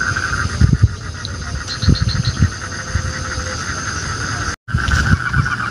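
Night chorus of frogs and crickets, a steady pulsing trill, with a few loud low thumps and rustles of movement through leafy brush in the first half. The sound cuts out for an instant near the end.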